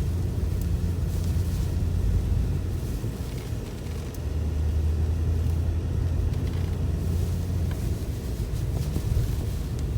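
BMW F90 M5's twin-turbo V8 running at low revs as the car pushes through deep snow, a steady low rumble. It eases off briefly about three to four seconds in, then picks up again.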